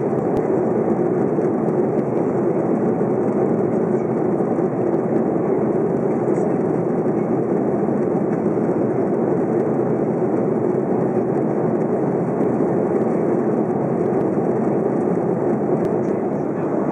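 Steady cabin noise inside an Airbus A330-300 in flight: the low, even drone of its Rolls-Royce Trent 700 engines mixed with the rush of air along the fuselage, heard from a window seat.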